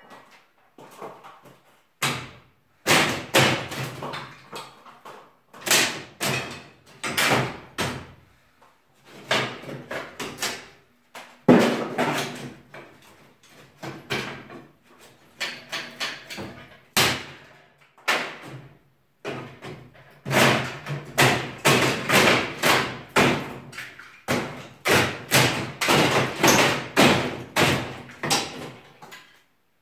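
Wooden ceiling boards and battens being knocked and pried loose from below with a long steel pry bar during ceiling demolition: repeated sharp knocks and bangs in irregular clusters with short pauses between them.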